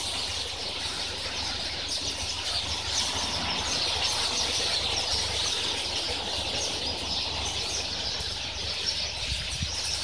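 A large flock of birds chattering together, a dense continuous din of many overlapping chirps: the flock gathering in the bamboo to roost for the evening.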